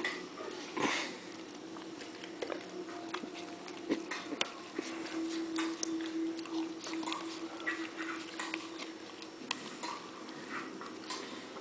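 Puppy licking out the inside of a plastic yogurt cup: a run of quick, irregular tongue clicks and smacks against the plastic, over a steady faint hum.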